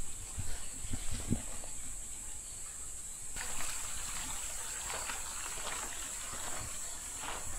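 Outdoor trail ambience: a steady high-pitched insect chorus, with soft footsteps in the first second or so and a rougher rustling noise from about three and a half seconds in.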